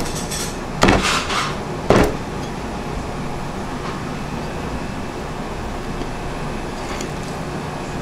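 A cleaver chops three times, about a second apart, cutting through mullet steaks and striking a round wooden chopping block. After the chops there is only a steady background din.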